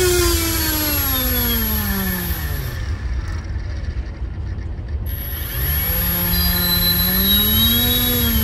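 Electric model-aircraft motor spinning a 3D-printed 11x6 Hamilton Standard scale propeller on a thrust stand, its whine falling in pitch over about three seconds as it spins down from full throttle. A couple of seconds later it spins up again to a lower pitch, holds briefly and winds down near the end, over a steady low rumble.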